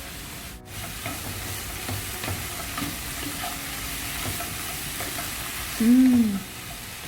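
Sliced onions and vegetables sizzling in olive oil in a pan while being stirred, with a steady frying hiss and light irregular taps of the spatula against the pan. Near the end, a short hummed voice sound, louder than the frying.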